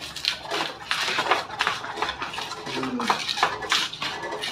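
Pestle (ulekan) knocking and scraping in a cobek mortar, crushing green chillies and garlic for a spice paste: a string of irregular knocks and grinding scrapes.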